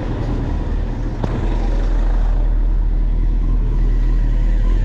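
A Peugeot people carrier drives slowly past at close range, a low engine and tyre rumble that grows a little louder about a second and a half in. There is a brief click just over a second in.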